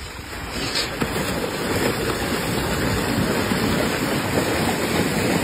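Water gushing out of a fish holding tank through a pulled gate and pouring down a metal chute, carrying the fish with it. It builds over the first two seconds into a steady rush.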